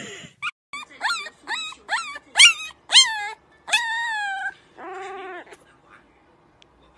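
Puppy whining and yipping: a run of short, high cries that each rise then fall, about two a second, then a longer drawn-out cry, and a lower wavering call about five seconds in.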